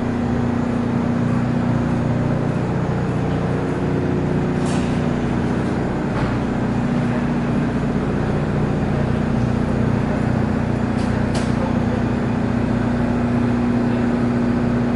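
Steady mechanical hum of supermarket refrigeration and ventilation machinery, with a constant low tone and a few faint clicks.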